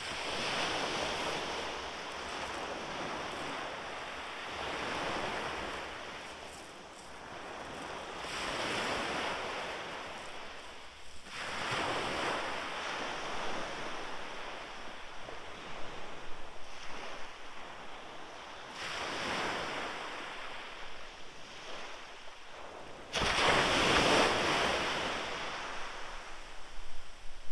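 Sea surf breaking on the beach, swelling and fading every few seconds, with some wind on the microphone. The loudest surge comes near the end.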